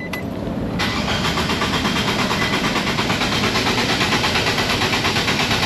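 Nissan Versa's four-cylinder engine cranking on the starter in clear flood mode without firing. It starts about a second in, with a steady, even rhythm of compression strokes. The even cranking sound suggests no dead cylinder behind the cylinder 3 misfire.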